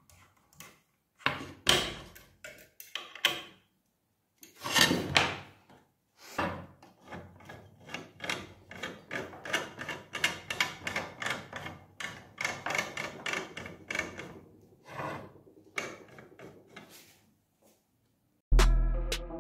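Screwdriver work on a small DIY CNC axis, turning screws into 3D-printed plastic carriage parts. It is heard as scattered scrapes and clicks, then in the middle as an even run of short rubbing strokes, two or three a second.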